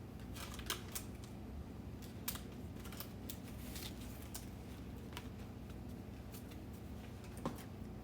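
Trading cards being handled on a table: scattered light clicks, taps and rustles as cards are slid and set down, over a steady low electrical hum.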